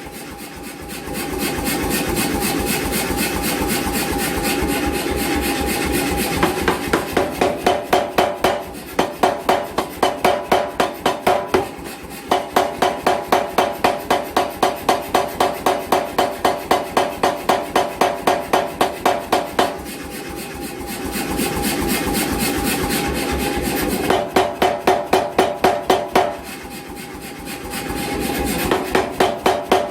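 88 lb C41 air power hammer running, its motor and compressor making a steady sound, broken five times by runs of rapid, evenly spaced blows at about three to four a second, the longest lasting about seven seconds.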